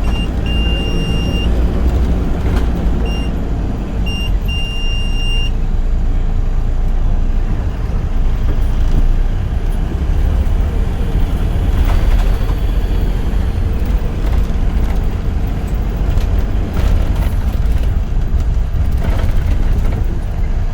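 Steady low engine rumble of a large road vehicle, with a few short high electronic beeps in the first five seconds.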